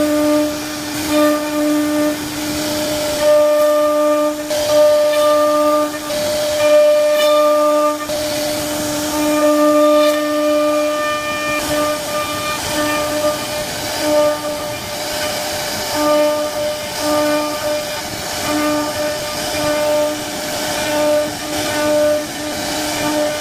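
CNC router spindle carving wood: a steady high-pitched whine that keeps dropping out and coming back, over the hiss of the cutter in the wood.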